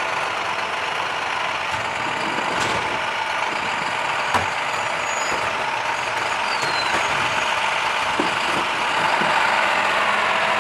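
Side-loading garbage truck running steadily while stopped, a continuous mechanical drone with a few light knocks.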